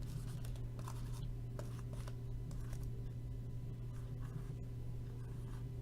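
Pen scratching as numbers are written on cardboard boxes, in short irregular strokes, over a steady low hum.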